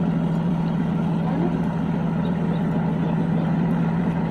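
Small fishing boat's engine running steadily with an even, low hum.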